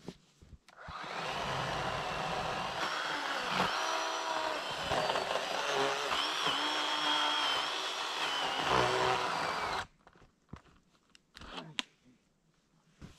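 Chainsaw cutting through a fallen tree trunk, its pitch dipping and recovering as it bogs under load. It starts about a second in and stops abruptly near ten seconds, followed by a few crunching steps in snow.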